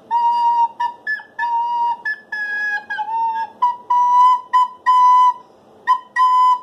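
A recorder played as a short run of separate tongued notes, mostly on one or two neighbouring pitches, with a few higher notes early on and the tune stepping slightly higher in its second half.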